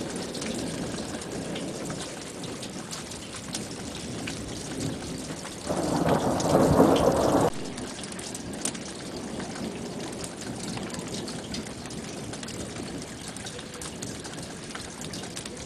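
Steady rain falling, with single drops striking close by. About six seconds in, a loud burst of thunder lasting nearly two seconds stops sharply.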